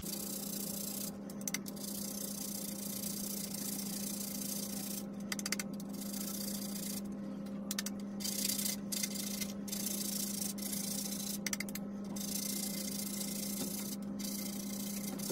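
A whole nutmeg being grated by hand on a grater: continuous scraping strokes, broken by short pauses several times, over a steady low hum.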